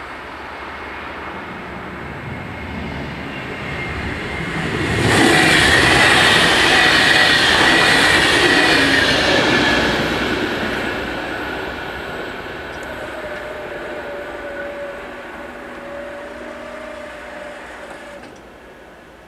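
DB class 612 diesel multiple unit passing over the crossing: it builds up, is loudest for about five seconds with a high steady whine over the rumble, then fades as it runs away.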